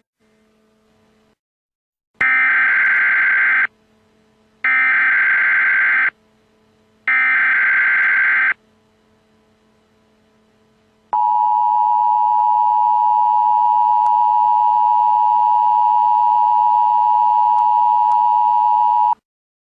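Emergency Alert System tones: three identical screeching SAME header data bursts, each about a second and a half long, then the steady two-note EAS attention signal sounding for about eight seconds before cutting off. This is the standard header-and-attention sequence that opens an EAS broadcast, here before a tornado warning.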